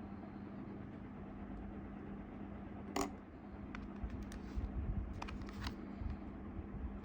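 Small hardware being handled: a sharp click about three seconds in, then a cluster of lighter clicks and taps, over a steady low hum.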